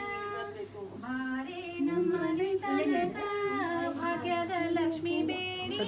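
Women's voices singing a Kannada devotional song together, in long held, slowly bending notes with short breaks between phrases.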